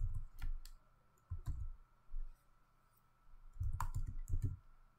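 Typing on a computer keyboard: scattered keystroke clicks in a few short runs, with pauses between.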